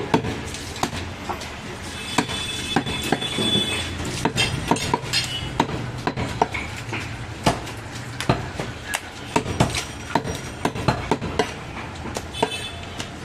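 A butcher's cleaver chopping mutton on a wooden log chopping block: irregular sharp knocks, several a second at times, over a steady background of market noise.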